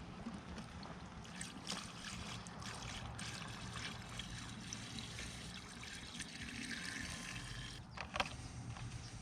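Faint trickle of liquid as a chainsaw's tank is topped up, with a few light clicks and a short knock about eight seconds in.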